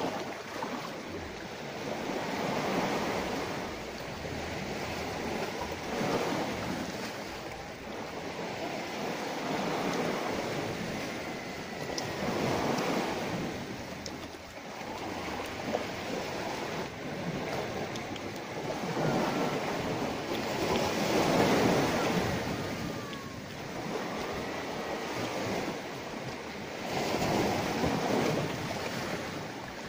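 Sea waves washing onto the shore, the surf noise swelling and falling back every several seconds.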